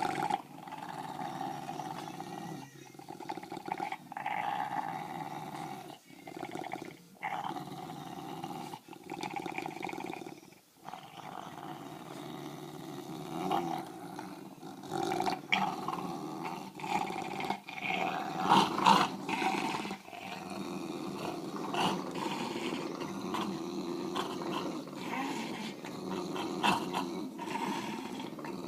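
English bulldogs growling continuously while tugging on a toy. The growl breaks off in short pauses every second or two, and turns louder and more ragged a little past halfway.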